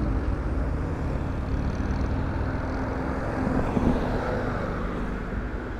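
Road traffic around the motorcycle: nearby cars' engines and tyres make a steady low rumble, with a few faint held engine tones.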